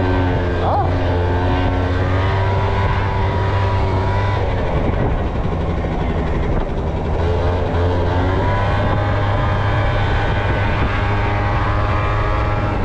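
A 50cc scooter's small engine running while riding along, with wind and road noise underneath. Its pitch wavers and drops back about four to seven seconds in, then rises as it speeds up again.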